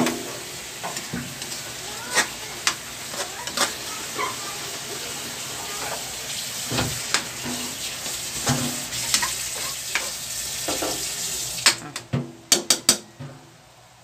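Beef and onions sizzling in oil in a metal wok while a metal spatula stirs and scrapes them, with frequent sharp clinks of metal on the pan; the braising liquid has cooked off and the meat is frying in its own oil. Near the end the sizzling stops suddenly and a few sharp clicks follow.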